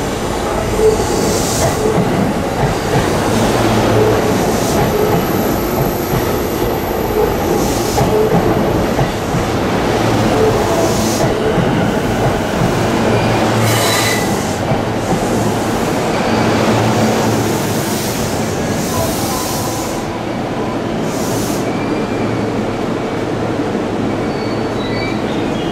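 Keihin-Tohoku Line E233-series electric commuter train rolling past on curved track, a steady running rumble with wheel noise. Thin, high wheel squeals come through about halfway through and again near the end.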